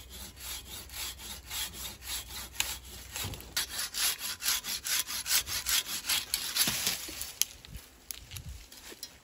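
Curved hand pruning saw cutting a pine limb off at the trunk: fast, even back-and-forth rasping strokes, about four a second. The strokes stop a little after seven seconds in, as the cut goes through.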